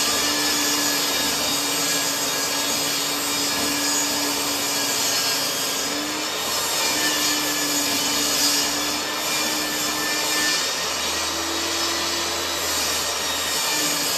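Benchtop table saw running steadily and ripping pallet-wood boards lengthwise into slats: a continuous motor and blade whine mixed with cutting noise, its pitch wavering slightly a few times.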